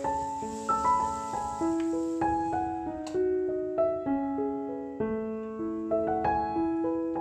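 Background music: a solo piano melody of steady, evenly paced notes.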